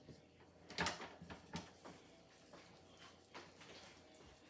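Slow cooker's glass lid being unlatched from its clip-on strap and lifted off the stoneware crock: a few light knocks and clicks, the loudest about a second in.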